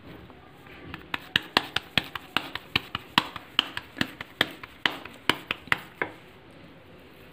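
Hands patting a ball of potato and buckwheat-flour dough flat between the palms to shape a tikki: a quick series of light slaps, about four a second, starting about a second in and stopping about six seconds in.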